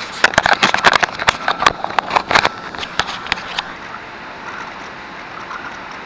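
Handling noise from a small action camera being moved and set up: a rapid, irregular run of clicks and knocks that stops about three and a half seconds in, followed by a steady outdoor noise.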